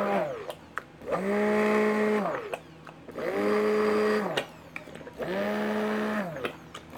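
Stick blender pulsed in hot-process soap batter, blending in raw sugar. Its motor winds down just after the start, then runs in three bursts of just over a second each, rising in pitch as it starts and falling as it stops, with a few clicks between bursts.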